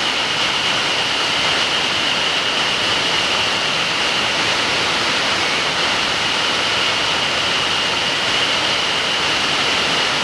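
Steady rush of a large two-tiered waterfall, about 40 m of falling water, with an even high whine held over it throughout.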